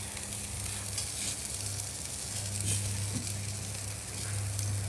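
Food frying in a pan, a steady sizzle with small crackles, over a steady low hum.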